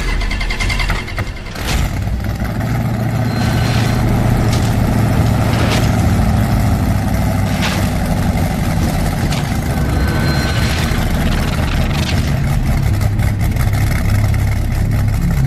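A vehicle engine running with a deep, steady low rumble, broken by several sharp cracks.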